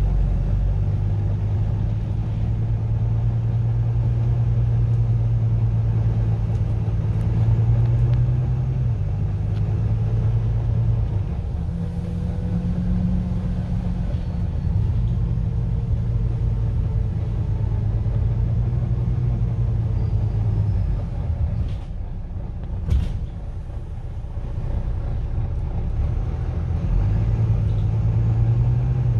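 Diesel engine of a First South Yorkshire bus heard from inside the passenger saloon while under way: a steady low engine hum whose pitch steps up and down several times as the bus speeds up and slows. It eases off and goes quieter about two-thirds of the way through, with a couple of sharp clicks, then picks up again near the end.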